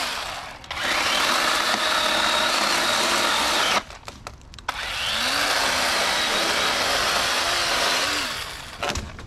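Cordless battery chainsaw cutting through a fallen tree trunk: two runs of about three seconds each with a short pause between, the motor's pitch dipping as the chain bites into the wood.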